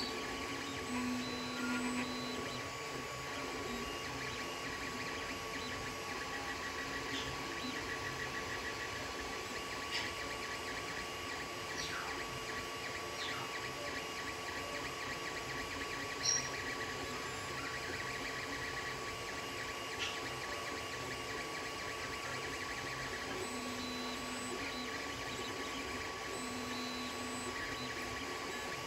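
Creality Ender 3 3D printer running a print: a steady hum from its cooling fans under the whirring of its stepper motors as the print head moves. A few short clicks come through.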